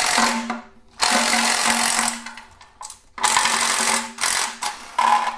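Cordless power tool spinning a 10 mm socket in three runs of about a second each, running out the oil pan bolts on a Hyundai Sonata 2.4 GDI engine.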